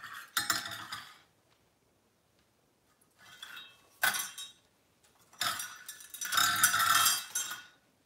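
Metal pots and bowls clinking and clattering in three bouts, the longest and loudest near the end, as a parrot knocks them about and drops them.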